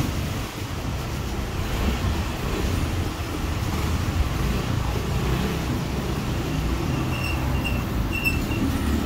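Steady low outdoor background rumble with no clear single source, and a few short high chirps about seven to eight seconds in.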